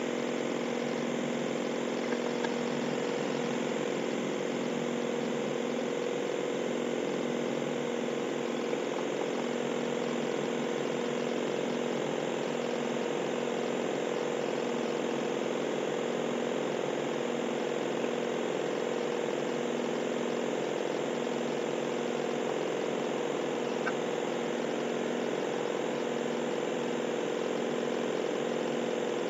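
1998 Mazda 626 engine idling steadily but roughly under the load of headlights, defroster and air conditioning, its speed sagging to about 500 RPM and the engine shaking hard.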